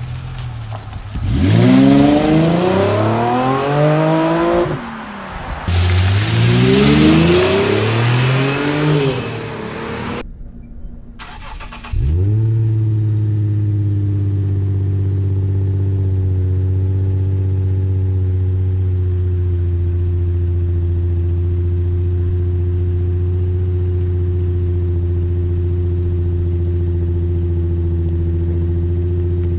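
Infiniti G35x's 3.5-litre VQ V6 exhaust, heard on two hard take-offs from a standstill. Each time the pitch climbs and drops back with the upshifts: once with a muffler delete and once with an HKS Hi-Power axle-back. After a cut, the engine cold-starts through the HKS axle-back and settles into a steady, loud fast idle whose pitch eases slightly.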